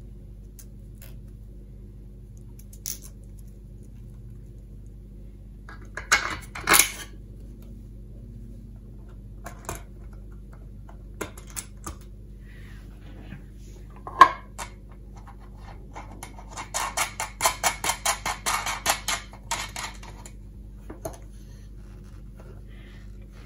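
Small stainless steel nuts, washers and bolts clicking and clinking against a plastic enclosure as they are fitted by hand. A loud double clink comes about six seconds in and a sharp one near the middle. Toward the end there is a quick run of clicks, about four a second, for a few seconds.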